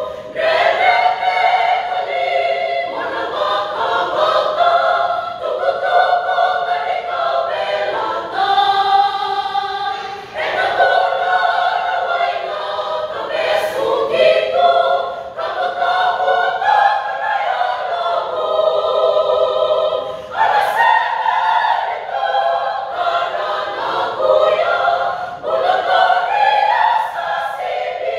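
Mixed choir of women and men singing a Fijian hymn, phrase after phrase, with brief breaks between phrases every few seconds.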